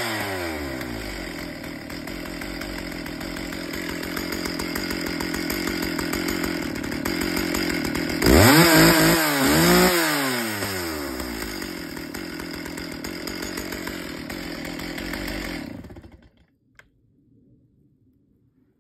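Stihl two-stroke chainsaw engine coming down from a rev to a steady idle, blipped up and down twice about eight seconds in, idling again, then switched off about sixteen seconds in.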